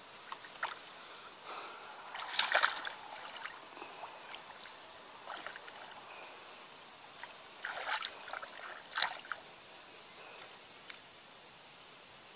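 Hands splashing and sloshing in shallow, muddy ditch water while feeling through it for fish, in a few short irregular bursts, the sharpest about nine seconds in.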